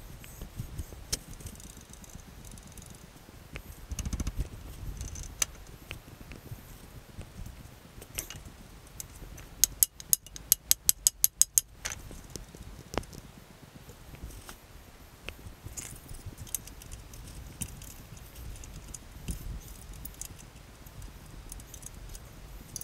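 Light metallic clicks and rattles from handling parts at a wood lathe, with a quick run of about a dozen sharp clicks around the middle. The lathe motor is not running.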